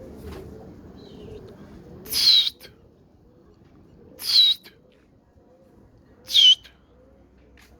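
Pigeons cooing softly over and over, with three loud, short, harsh bird calls about two seconds apart, each dropping in pitch.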